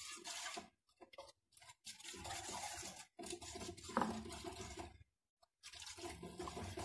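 Steel ladle scraping and stirring a thickening cornflour sauce around a stainless-steel kadai, in uneven strokes.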